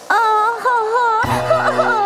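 Children's cartoon background music: a high, sliding lead melody over held chords, with a low bass joining just past a second in.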